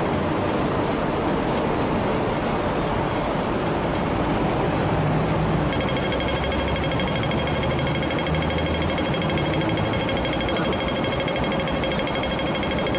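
Loud, continuous rapid mechanical hammering. A steady high whine joins it about halfway through.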